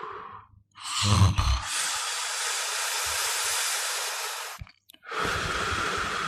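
Snoring: a short, low, rattling snort about a second in, then a long, steady, airy hiss of breath lasting about three seconds. After a brief break another hissing breath begins.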